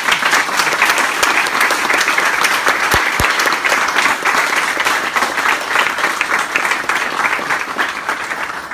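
A small audience applauding, dense hand-clapping that thins out near the end, with a couple of brief low bumps about three seconds in.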